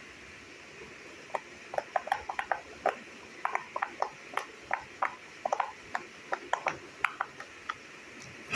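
Bubbles of a silicone pop-it fidget toy being pressed in one after another by fingers: an irregular run of short, sharp pops, several a second, starting after a second or so and stopping near the end.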